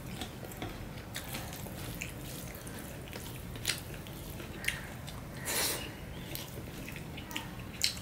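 Close-up eating sounds: scattered wet mouth clicks and smacks of chewing, with fingers mixing rice and curry on a steel plate. A brief louder rush of noise comes about five and a half seconds in.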